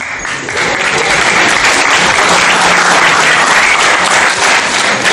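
Audience applause that starts abruptly and holds steady.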